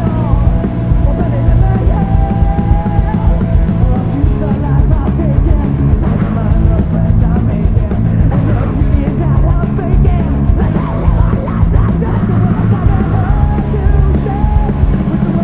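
Rock song playing continuously, with a heavy low end and dull, muffled treble, as if heard from inside a car.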